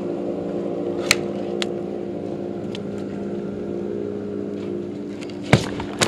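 A steady motor hum that holds one even pitch, with a few sharp knocks: one about a second in and another near the end.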